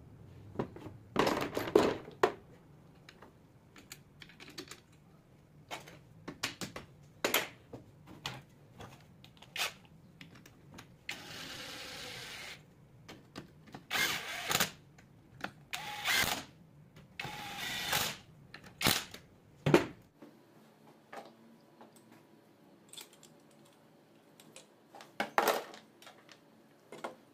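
Hand-tool and metal parts clinking and clattering against an alternator's rear housing and rectifier while it is worked on, in irregular clicks and knocks with several louder clatters in the second half. A steady rasping sound lasts about a second and a half near the middle.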